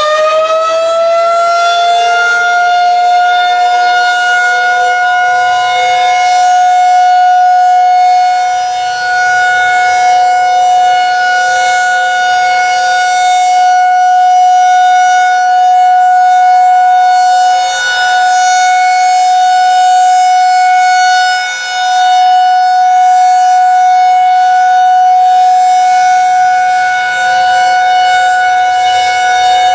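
Federal Signal 2001-SRNB outdoor warning siren sounding the steady alert signal for a monthly test. It finishes winding up to full pitch in the first couple of seconds, then holds one loud, steady tone that dips briefly in loudness a few times.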